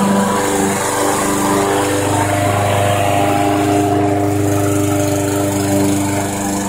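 Small gasoline engine of a walk-behind rotary lawn mower running steadily while the mower is pushed across grass, its note shifting a little in the first couple of seconds as it turns and takes up the cut.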